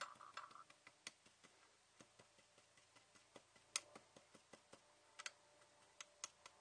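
Faint, irregular light taps and clicks, several a second, from texturing polymer clay pressed into a metal beer bottle cap.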